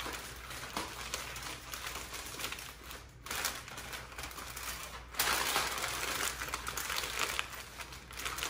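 Aluminium foil crinkling and crumpling as it is folded and pressed tightly around a rack of beef ribs. There is a brief lull about three seconds in, and the crinkling gets louder from about five seconds.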